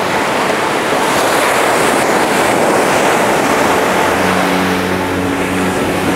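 Ocean surf washing up onto a sand beach: a steady, loud rush of breaking waves. Steady low tones come in about four seconds in.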